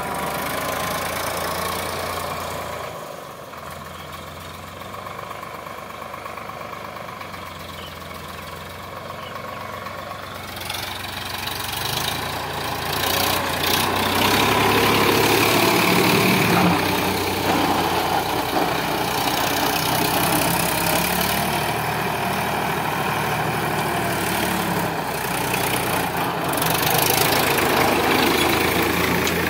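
Sonalika DI 745 tractor's three-cylinder diesel engine running steadily while pulling a tyne cultivator through loose soil; it gets louder about halfway through as the tractor comes close.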